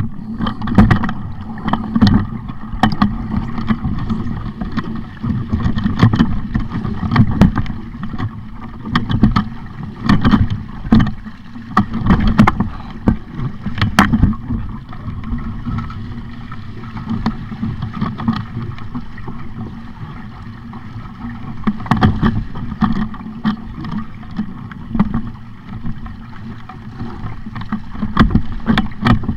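Sailing dinghy under way: water rushing and slapping against the hull and wind on the microphone, with frequent knocks and taps.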